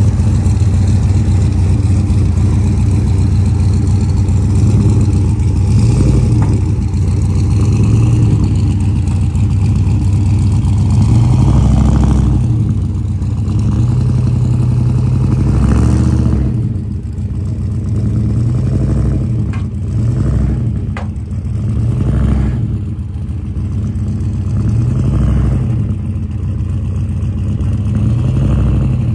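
Turbocharged LS V8 of a pickup race truck running at low speed. In the second half the engine swells up and back down about every two seconds as the throttle is blipped to creep the truck up onto a trailer.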